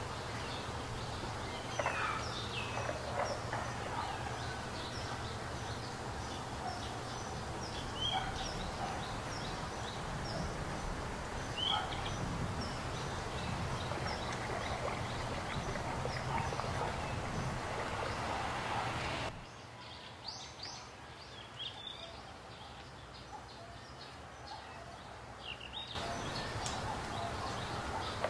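Small birds chirping again and again over a steady background hiss and low hum, everything dropping quieter for several seconds about two-thirds of the way through.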